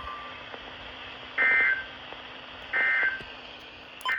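Emergency Alert System end-of-message signal from a NOAA Weather Radio broadcast: short bursts of raspy, warbling SAME data tones, repeated about every second and a half, the third starting near the end. They mark the close of the tornado warning.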